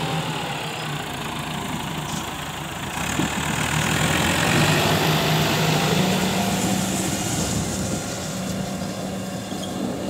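Ford 7740 tractor's diesel engine running steadily under load as it pulls a three-disc plough through hard, dry soil, with the scrape of the discs turning the dirt; it grows louder about three seconds in.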